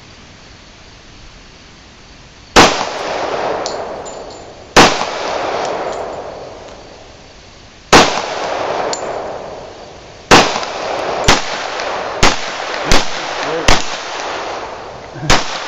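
Nine gunshots: four single shots two to three seconds apart, each trailing a long fading echo, then five quicker shots under a second apart, with metallic clangs of hits on a steel frying pan target.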